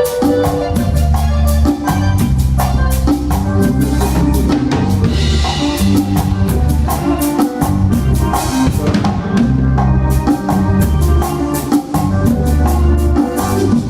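Live cumbia band playing an instrumental passage without vocals: a steady drum-kit and percussion beat over a bass line and pitched instruments.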